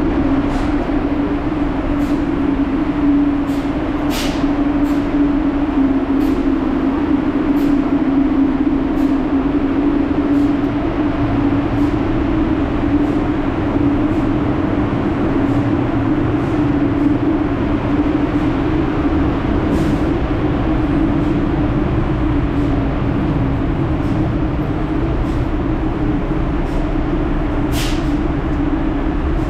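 Subway station noise: a steady low machine hum over a rumble, with faint light clicks about every second.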